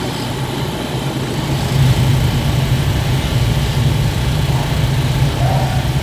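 Dirt-track sportsman modified race car engines running at low speed, a steady deep rumble that swells slightly about two seconds in.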